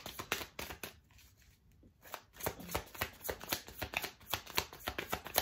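A deck of tarot cards being shuffled by hand: quick riffling card clicks, with a pause of about a second near the start before the shuffling goes on.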